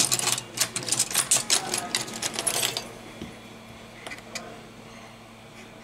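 Rapid, irregular clicking and scraping of a smartphone's small plastic and metal internal parts being handled and pried by hand, for about three seconds, then a few faint ticks.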